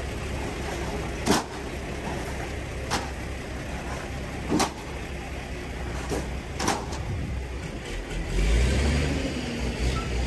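Scania 94 P260 crane truck's diesel engine running steadily, driving the hydraulics of a Fassi F380 knuckle-boom crane as it lifts a boat, with five sharp clicks spaced a second or two apart. The engine note grows louder and deeper about eight seconds in.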